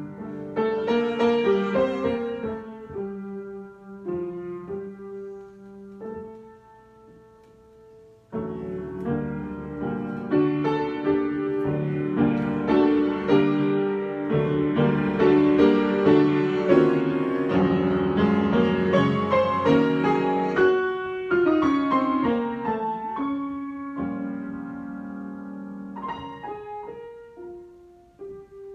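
Solo piano improvisation. A quiet stretch of held notes gives way about eight seconds in to a fuller passage of chords that grows louder and then fades toward the end.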